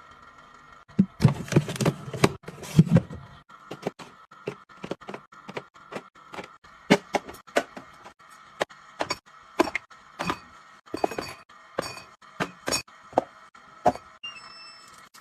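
Irregular light clicks and taps of small items being handled and set down, with a cluster of heavier knocks and thuds from about one to three and a half seconds in.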